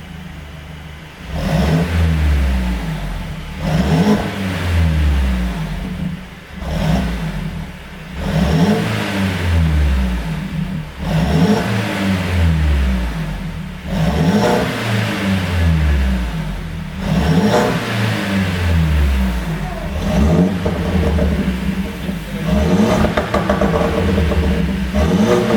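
Mercedes-Benz W205 C200's turbocharged four-cylinder engine blipped about ten times. Each time the revs drop, the exhaust gives a run of pops and crackles from a pops-and-bangs (overrun crackle) tune.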